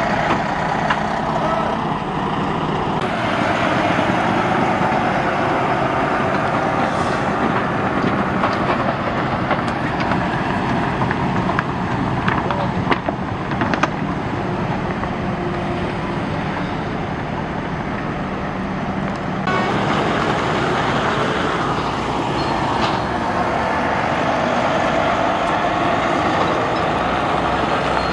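Volvo heavy-haulage truck's diesel engine running as the tractor unit pulls its trailer away, with tyre and road noise.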